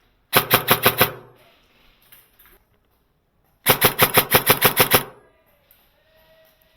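Airsoft gun firing two rapid full-auto bursts, a short one of about six shots and, about three seconds later, a longer one of about ten shots.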